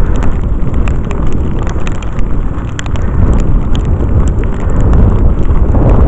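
Strong wind buffeting the microphone in a snowstorm, a loud low rumble, with the crunch of footsteps walking through snow.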